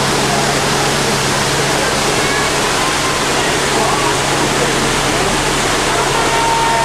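Steady rushing noise of a moving tour tram, with a constant low engine hum underneath and faint chatter from riders.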